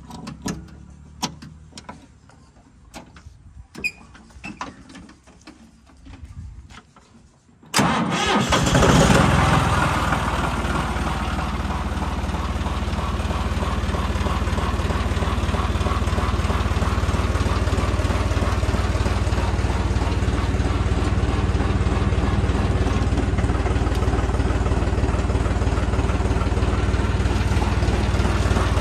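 A few light clicks, then about 8 seconds in a John Deere 5310 tractor's three-cylinder diesel engine starts with a sudden surge and settles into steady running.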